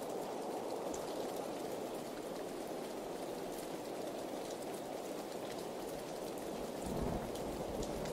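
Steady heavy rain falling, with scattered sharp drips over an even hiss. A low rumble sets in near the end.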